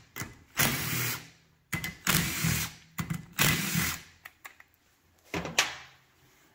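Cordless drill with a 10 mm socket spinning out the cam cap bolts on a Subaru EJ25 cylinder head, in four short bursts. A few clicks and one sharp knock follow near the end.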